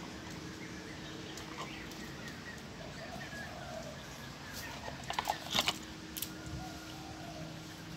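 A quick run of light clicks and taps a little past halfway, from a dog playing with a small toy on a tiled floor. Faint bird calls come and go behind it.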